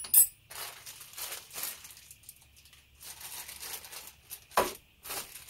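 Plastic hardware bags crinkling and rustling as they are handled and opened, in uneven bursts. A sharp click comes at the very start and a louder knock near the end.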